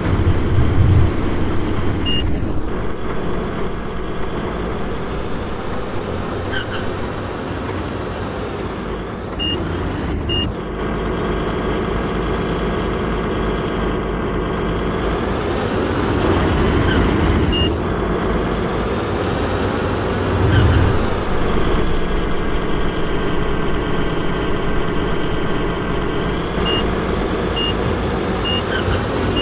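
JCB excavator's engine running steadily, its pitch dipping and rising several times as it works, with short high pips now and then.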